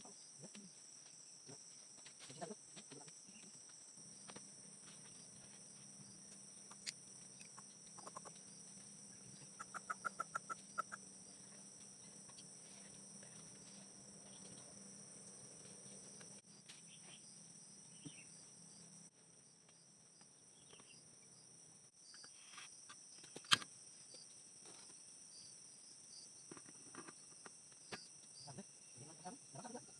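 Quiet forest ambience: insects trilling steadily on two high pitches, with a quick run of about eight calls about ten seconds in and one sharp click a little after the middle.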